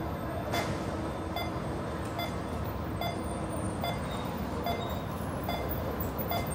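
City street noise, a steady traffic hum, with a short electronic beep repeating evenly a little more than once a second.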